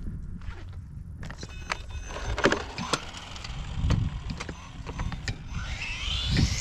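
Electric motor of a Tamiya MF-01X radio-controlled car, running on a 2S LiPo, whining as the car speeds down the road. The whine rises steeply in pitch near the end as the car accelerates.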